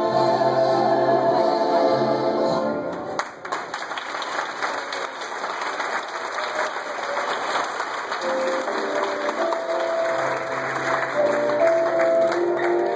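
Music with singing stops about three seconds in, and an audience breaks into applause; a slow melody comes back in about halfway through while the clapping goes on.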